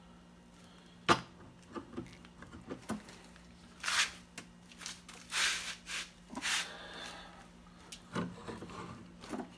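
Clicks, knocks and scraping from tools and pipe fittings being handled as corroded plumbing is taken apart. A sharp knock comes about a second in, and a few longer scraping sounds follow around the middle, over a faint steady hum.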